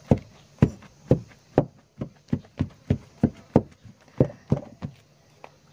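A wooden spoon stirring stiff tapioca-flour dough in a bowl, knocking in a steady rhythm of about two to three strokes a second. The knocking stops about five seconds in.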